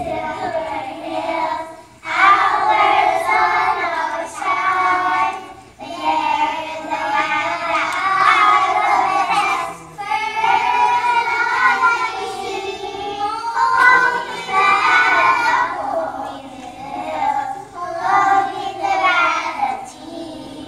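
A class of kindergarten children singing a song together, in phrases with short breaks between them, the singing trailing off near the end.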